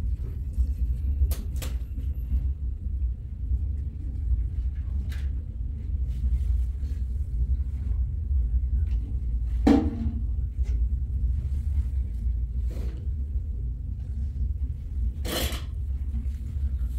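A steady low rumble with scattered short knocks and clacks; the loudest knocks come about ten and fifteen seconds in.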